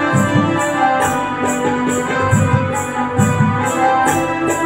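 Electronic arranger keyboard playing a sustained melody over a rhythm accompaniment with a steady beat of drum hits and shaken high percussion.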